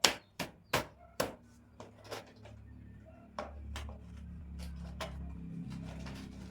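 Sharp clicks and knocks of shoe-rack parts being handled and fitted together, about six in quick succession over the first two seconds and fewer after. From about two and a half seconds a low steady hum runs beneath them.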